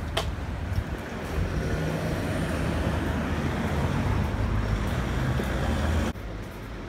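Steady road traffic noise, a low rumble with hiss, with a sharp click just after the start. The noise drops off suddenly about six seconds in.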